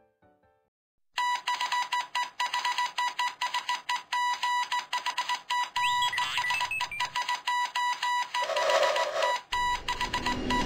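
Rapid, evenly repeated electronic beeping at one pitch, like an alarm, starting about a second in after a brief silence. Other noisy sound effects are layered over it in the second half.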